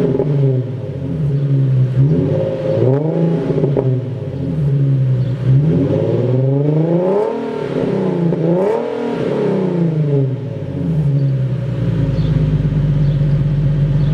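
2009 Nissan 370Z's 3.7-litre V6 through an STM axle-back muffler-delete exhaust, revved in a run of throttle blips that rise and fall, then settling to a steady idle about eleven seconds in.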